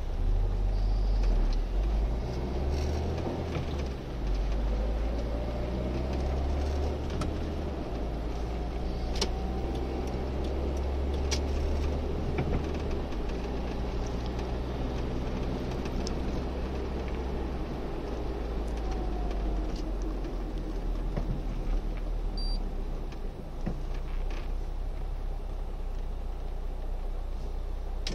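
Cabin noise of a Citroën XM on the move: a steady low engine drone and road noise, the drone shifting in level every few seconds, with a few faint clicks.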